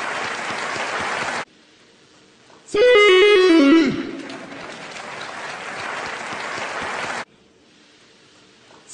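Crowd cheering that cuts off abruptly, then a loud, roughly one-second musical sound effect whose pitch steps down in several notes and falls away at the end. The crowd cheering returns briefly and cuts off again.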